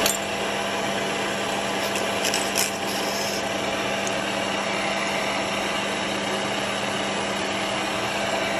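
Milling machine running with its end mill cutting a slot in a steel plate under coolant: a steady machine drone with a few short clicks about two to three seconds in.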